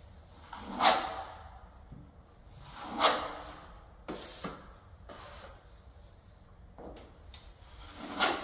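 Steel plastering trowel scraping stiff filler along a wall-to-ceiling angle and off a hawk. There are several scraping strokes, with louder swelling ones about a second in, about three seconds in and near the end, and shorter scrapes between them.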